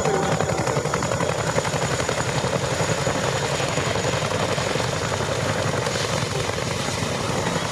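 Boeing CH-47 Chinook's tandem rotors beating in a fast, even blade-slap rhythm, with a steady high whine over it.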